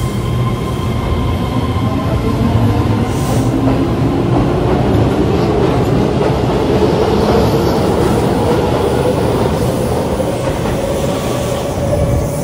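IGBT-VVVF inverter and traction motors of an electric train whining as it accelerates, with pitch rising steadily, over wheel-on-rail rumble and clatter. A few steady high tones fade out in the first couple of seconds.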